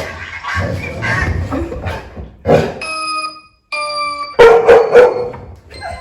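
Golden retriever barking. About three seconds in, a two-note doorbell chime sounds, followed by the loudest barks, and another chime note starts near the end.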